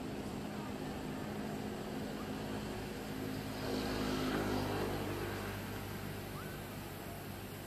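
A motor engine drones steadily in the background, swelling about three and a half seconds in and then slowly fading, as a vehicle passing at a distance does.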